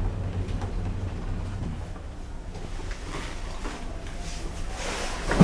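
Otis 2000 hydraulic lift running, a steady low hum that drops away about two seconds in as the car slows, then a sharp thump at the very end.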